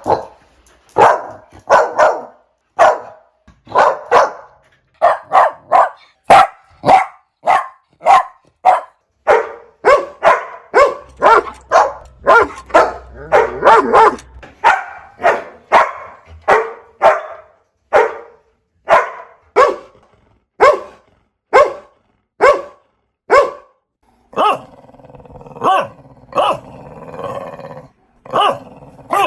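Puppy barking over and over in short barks, about two a second. Near the end the barks come less regularly over a steady background noise.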